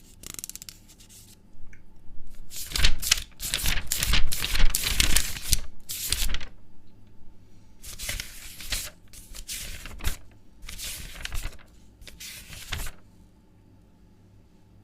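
Paper being handled, rustling in irregular bursts that stop about thirteen seconds in.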